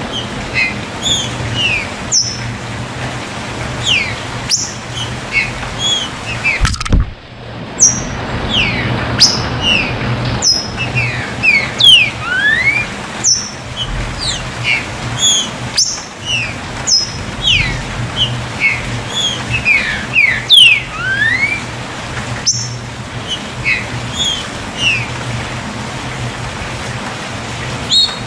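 Trinca-ferro (green-winged saltator) singing the 'canto chuva' song: a run of short whistled notes, many sliding up or down in pitch, over a steady rushing background noise. The sound drops out briefly about seven seconds in.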